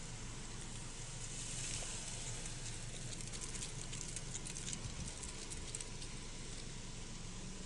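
Brush fire burning through leaf litter and undergrowth, crackling and popping, with the pops thickest in the middle, over a steady low rumble.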